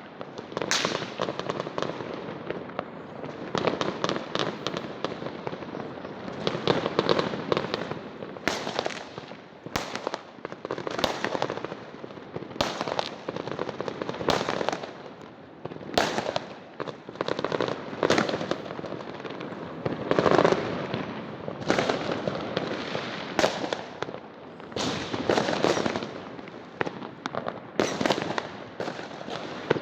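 Fireworks going off without a break: many sharp bangs at irregular intervals over a continuous crackling of bursting shells.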